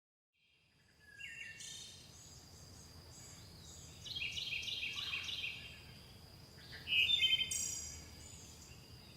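Birdsong: several phrases of quick, repeated high chirps beginning about a second in, loudest around four and seven seconds in, over a thin steady high tone.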